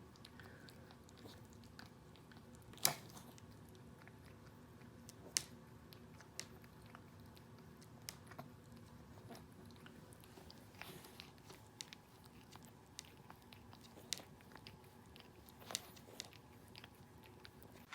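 A Pomeranian licking: faint, irregular wet clicks and smacks of its tongue and mouth, with a few sharper clicks standing out.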